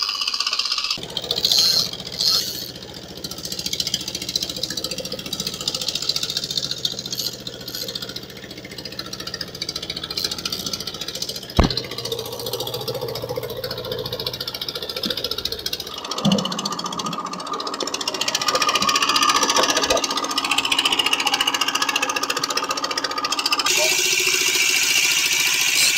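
Fishing boat's engine running steadily under way, with a rush of noise over it. The sound changes abruptly a few times, and there is one sharp click about halfway through.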